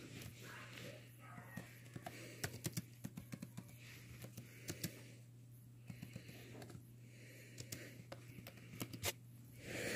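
Soft, irregular keystrokes on a computer keyboard, typing a chat message in short clusters, over a steady low electrical hum.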